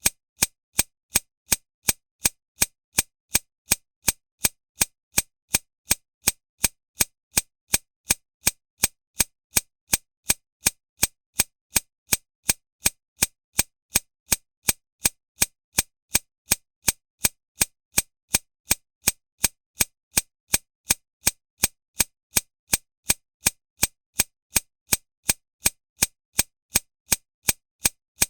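Handgun shot sound effect repeated in a steady rhythm, about two sharp, very short cracks a second, each cut off dry.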